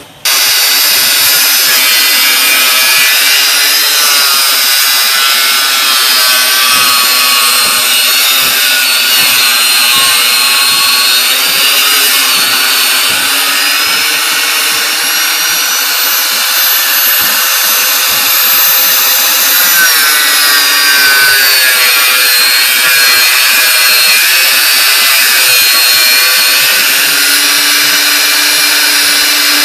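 Handheld power tool running continuously at high speed, a loud steady whine that drifts slightly in pitch as it works against the steel rebar.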